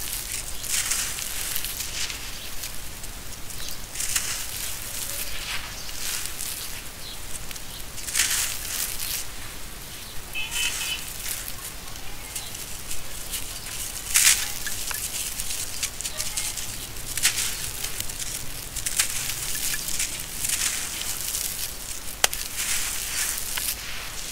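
Dry sand-cement lumps crushed and crumbled by hand, the grit crunching and sifting through the fingers in a string of crisp, crackly bursts every second or two.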